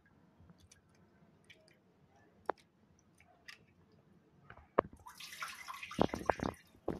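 Faint drips and small splashes of poha being washed by hand in a bowl of water. About five seconds in, a louder rush of water pouring for about two seconds, with a few knocks.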